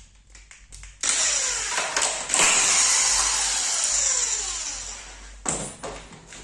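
Metabo electric impact wrench spinning a nut off a clamp bolt. It gives a short burst about a second in, then runs for a few seconds with its motor pitch falling as it winds down, and a brief second burst comes near the end.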